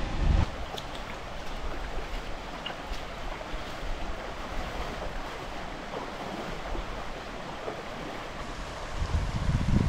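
Steady rushing of a creek's flowing water. Low wind buffeting on the microphone breaks in at the very start and again near the end.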